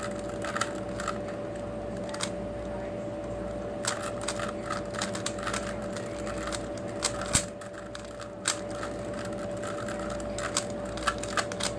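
3x3 puzzle cubes being turned fast during a solve: irregular runs of light plastic clicks as the layers snap round, a couple of sharper clacks partway through, over a faint steady hum.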